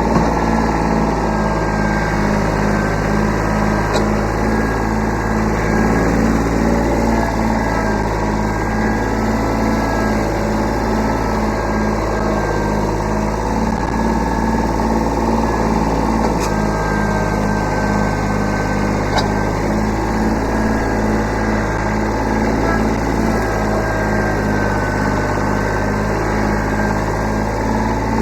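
Kubota B7100 subcompact tractor's three-cylinder diesel engine running steadily with an even, throbbing beat.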